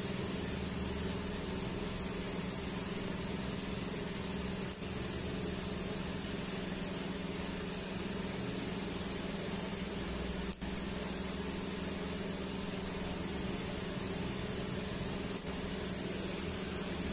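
Steady hum and hiss from a TIG welding set while a stainless steel pipe joint is welded, dipping briefly three times.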